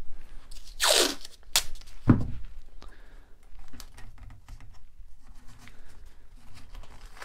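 Blue painter's tape being pulled off the roll with a short ripping sound about a second in, followed by a knock and quieter crinkling and rustling as the tape is wrapped and pressed around a wooden chair leg.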